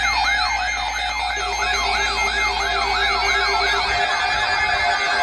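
Electronic siren alarm: a tone sweeping rapidly up and down, about three sweeps a second. A steady lower tone joins about a second and a half in, and near the end the sweeping fades while steady tones carry on.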